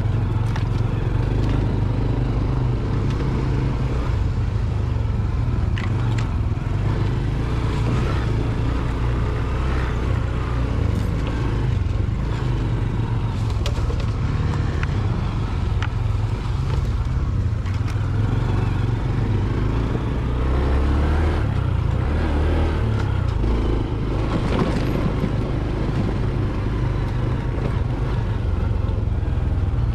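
Honda Trail 125's single-cylinder four-stroke engine running steadily with a low, even note while the bike is ridden along a trail, with scattered sharp clicks and knocks over it.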